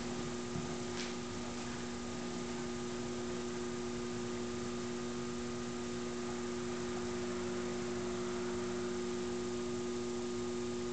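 A steady electrical hum with several held tones over an even hiss, unchanging throughout, with one faint click about a second in.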